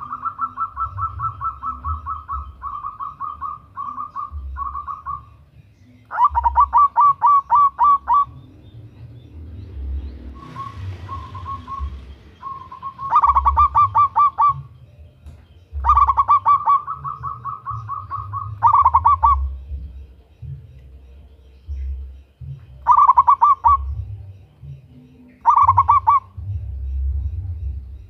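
Zebra dove (Javanese perkutut) cooing: phrases of rapid, evenly spaced short notes at one pitch, each lasting a second or two and repeated every few seconds.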